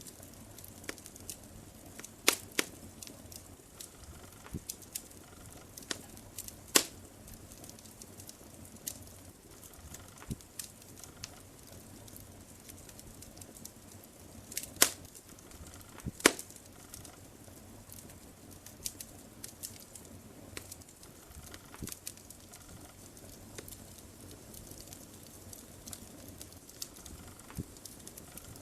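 Wood fire crackling in a fireplace: a soft steady hiss with irregular sharp pops and snaps, the loudest about two seconds in, near seven seconds, and a pair around fifteen and sixteen seconds.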